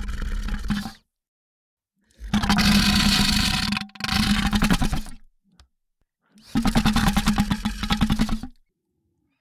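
Monster creature vocal sound effect: a low, rapidly pulsing rattle-growl in separate bursts. One burst ends about a second in, a longer one runs from about two seconds to five with a brief break in the middle, and another comes near the end, with silence in between.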